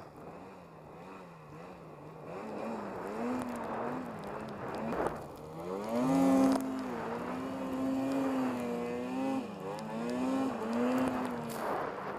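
Snowmobile engine working through deep powder, its pitch wavering up and down with the throttle, then climbing about five seconds in and holding higher for a few seconds before dropping back and wavering again.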